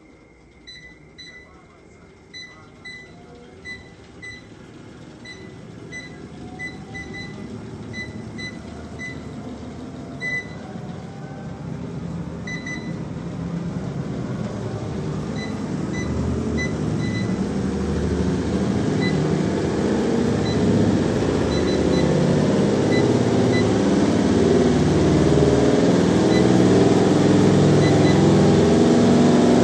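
Treadmill console beeping again and again as the speed is pressed up, about two beeps a second at first and fewer later. Under it the belt and motor run and rhythmic footfalls grow steadily louder as the treadmill speeds up.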